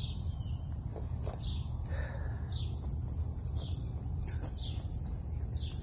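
Insects, crickets by the sound of it, keeping up a steady high-pitched drone, with short falling chirps about once a second and a low rumble underneath.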